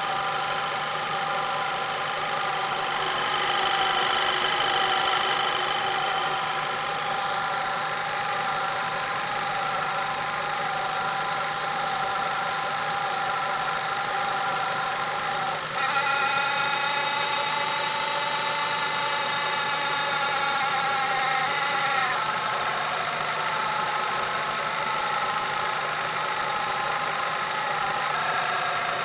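VW Scirocco 2.0 TSI turbocharged four-cylinder petrol engine idling warm, with a steady hum from under the engine cover. About halfway through, a higher-pitched tone sets in abruptly and lasts about six seconds before it fades. This is the owner's unexplained idle noise, which he says appears only once the engine is warm and with no fault codes stored.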